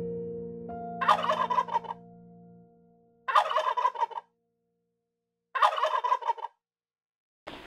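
A male turkey gobbling three times. Each gobble is a fast rattling call about a second long, with pauses of a second or more between them.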